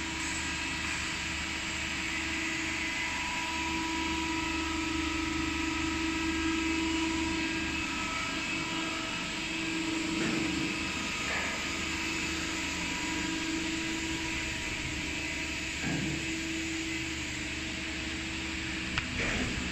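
Steady drone of the foam punching line's machinery running, with a held mid-pitched hum and a few faint knocks about halfway through.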